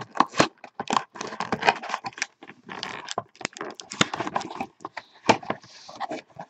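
A cardboard trading-card hobby box being handled and opened by hand, with its pack slid out. The sound is a dense, irregular run of quick taps, clicks and scrapes of card against card.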